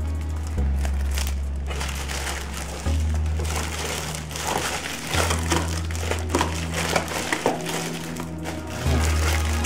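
Plastic packaging crinkling and cardboard rustling as a model kit box and its bagged parts are handled, with many small crackles throughout. Background music with low bass notes that change every few seconds plays underneath.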